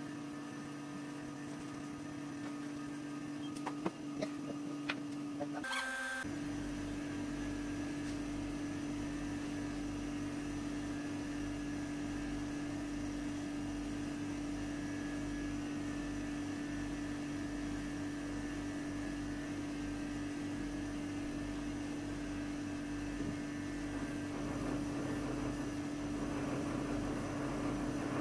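Electric dog grooming clippers running with a steady hum as they trim a poodle's coat. The hum breaks off briefly about six seconds in and then carries on.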